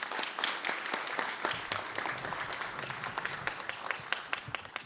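Audience applauding, a dense patter of many claps that thins out near the end.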